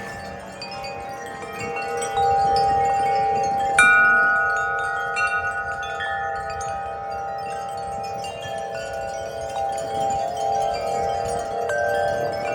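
Several tuned metal wind chimes ringing in gusty wind, many tubes struck again and again so their tones overlap and sustain; a loud strike about four seconds in rings on and fades over several seconds.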